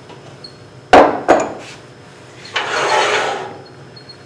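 Two sharp knocks about a second in, then about a second of scraping as a lathe's tool rest is slid along the bed and set up against a chucked wooden bowl blank.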